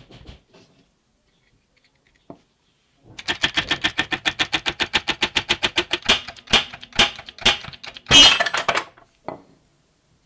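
A brass ferrule being driven onto a wooden knife handle: a fast, even run of metallic taps, about nine a second, then a few heavier separate blows, the loudest near the end.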